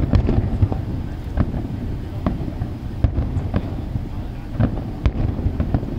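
Aerial fireworks bursting in a string of sharp bangs, roughly one or two a second at uneven spacing, over a continuous low rumble.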